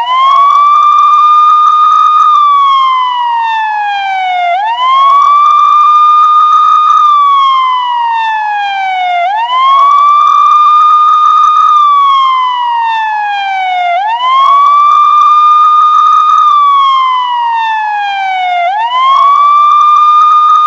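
Loud police siren wailing: each cycle climbs quickly, holds a steady high tone for about two seconds, then slides slowly back down, repeating about every four and a half seconds.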